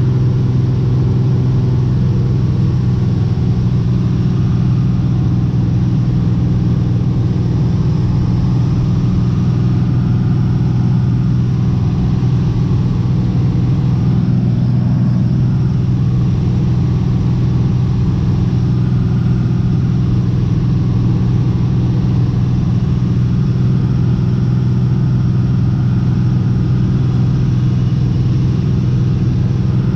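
Cessna T210 Turbo Centurion's turbocharged six-cylinder engine and propeller droning steadily in flight, heard from inside the cockpit. The pitch and level hold constant throughout.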